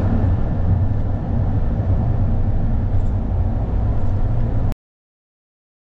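Steady low engine rumble of a moving vehicle, cutting off suddenly about three-quarters of the way through.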